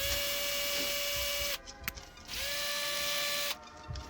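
Cordless screwdriver tightening the screw of a chimney pipe coupling clamp, running in two steady whining bursts of about a second each, with a short click between them.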